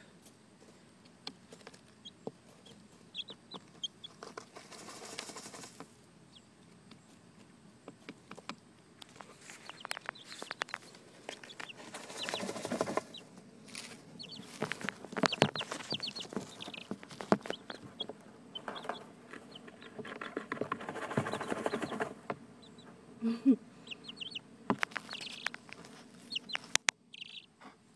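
Young hens dust bathing in dry sand: scratchy rustling and flicking of sand in bursts, with scattered soft clucks and short high peeps.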